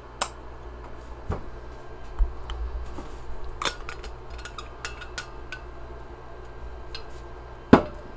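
Metal bullet-shaped thermos tumbler and its screw-on top clinking and knocking as they are handled, with scattered sharp clicks; the loudest knock comes near the end.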